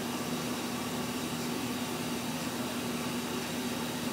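A steady mechanical hum with an even hiss over it.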